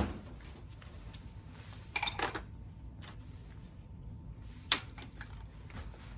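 Metal tools and small engine parts being handled during engine disassembly, giving a few sharp clinks and knocks: one at the start, a short cluster about two seconds in and another near five seconds.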